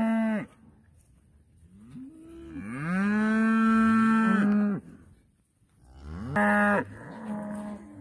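Cattle mooing. One moo trails off just at the start, a long, drawn-out moo runs from about two to nearly five seconds in, and a shorter moo comes about six and a half seconds in.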